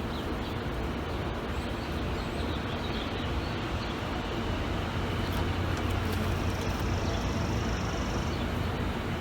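Steady low hum over a wash of outdoor noise, with a faint high whine for about two seconds near the end.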